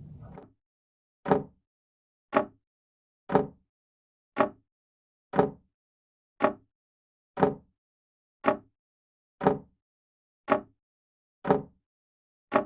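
A steady ticking beat, one short stroke about every second, each fading quickly, with silence between the strokes.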